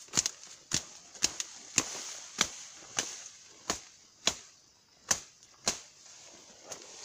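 Dry twigs and brush snapping and crackling underfoot and under hand as someone pushes through dense undergrowth: irregular sharp snaps, about two a second.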